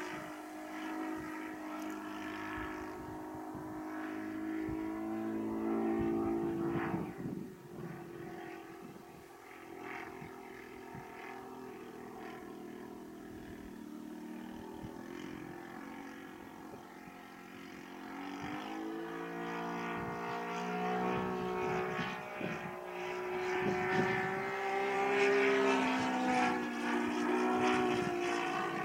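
Saito 220 four-stroke glow engine of a Hangar 9 Extra 260 model aerobatic plane running in flight, a steady drone that rises and falls in pitch and loudness as the plane manoeuvres and passes. It is louder about six seconds in, fades through the middle, then grows loud again in the last ten seconds.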